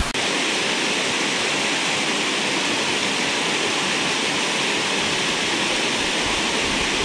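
Steady rush of a waterfall pouring into a pool, an even hiss of falling water that does not change.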